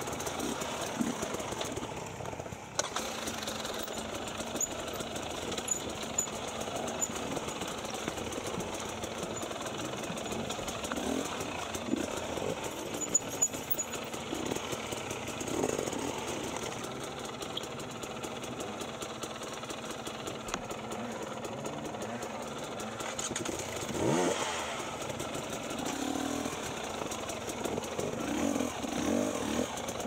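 Enduro dirt-bike engines running at low revs as the bikes pick their way over boulders, with short throttle blips now and then and one rising rev about three-quarters of the way through.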